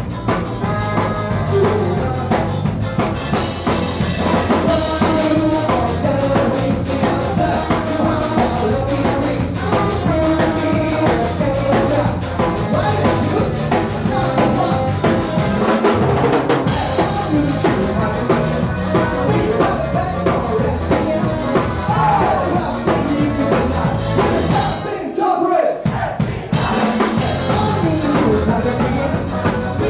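Live band playing, with drum kit, accordion and saxophone. The drums and bass stop for about a second a few seconds before the end, then come back in.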